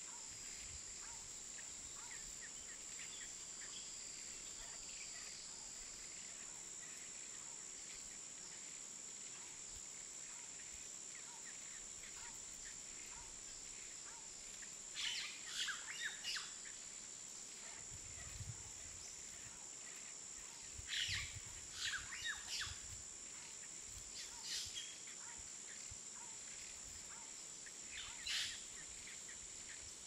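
Birds chirping in short, sharp bursts that come in clusters in the second half, over a steady high insect drone.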